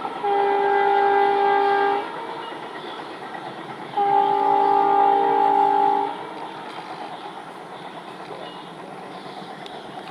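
ALCO diesel locomotive's air horn sounding two long, steady blasts of about two seconds each, a couple of seconds apart. Between and after them comes the train's running noise with wheel clatter on the rails.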